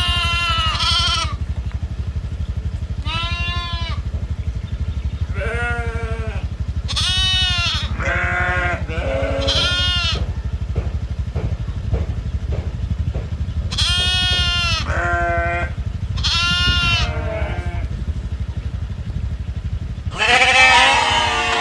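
Domestic goats bleating again and again, each call short and arched in pitch, several animals calling at once and louder near the end. A steady low hum runs underneath.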